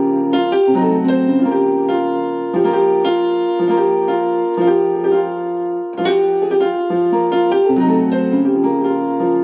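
Keyboard with a piano sound playing sustained block chords of a passing progression leading to the 4 chord in the key of F. The chords change about every second, and the sequence starts over about six seconds in.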